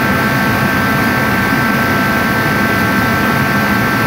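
Craftsman 80,000 BTU forced-air kerosene torpedo (salamander) heater running at full fire: a loud, steady rush of blower and burner with a constant high whine.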